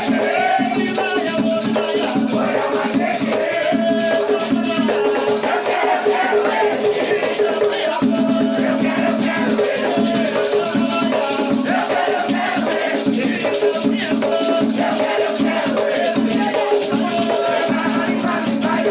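Batuque ritual music: a rattle shaking in a steady rhythm over drumming, with voices singing.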